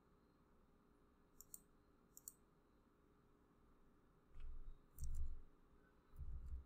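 Computer mouse clicking: a few short, sharp single clicks. In the second half come three dull, low thumps, louder than the clicks.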